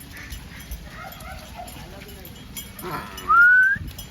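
Goats being herded out, with a bleat just before three seconds in, then a short, loud rising whistle lasting about half a second.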